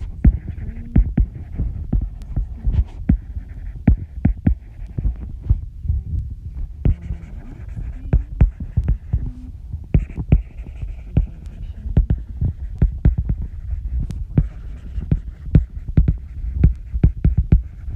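Irregular taps and low thumps, several a second, over a steady low hum: a stylus knocking against a tablet screen while writing, carried into the microphone.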